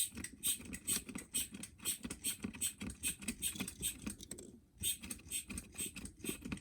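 Hand vacuum pump being squeezed over and over, rapid clicking strokes at about four a second with a short pause near the fifth second. It is drawing vacuum on the turbo actuator to pull its rod to the stop.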